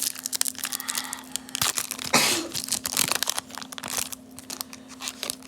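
Foil trading-card pack wrapper crinkling and being torn open, with the loudest rip about two seconds in, among scattered clicks of cards and wrapper being handled.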